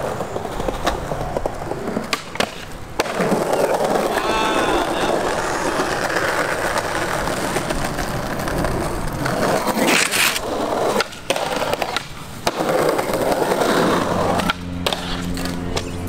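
Skateboard wheels rolling over stone paving tiles, broken by several sharp clacks and slaps of the board hitting the ground.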